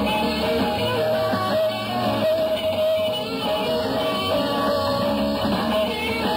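Live rock band playing, electric guitar to the fore over bass, with a long held guitar note running through much of it.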